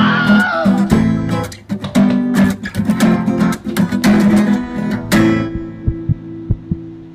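Background music of strummed guitar chords. About five seconds in the strumming stops and a held note rings on, over a run of soft, evenly spaced low thumps.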